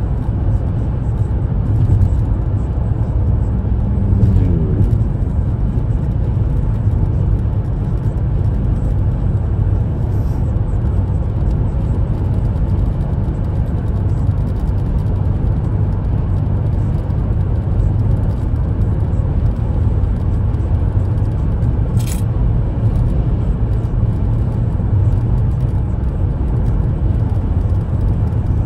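Steady low rumble of a car on the move, engine and tyre noise with no let-up. A brief light tick sounds about three-quarters of the way in.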